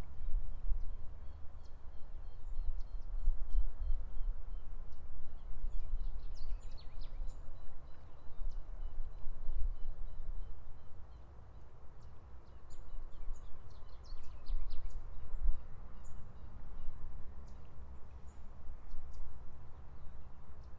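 Riverside ambience: a low, uneven outdoor rumble with short, high bird calls, in a burst about six to eight seconds in and again from about twelve to sixteen seconds.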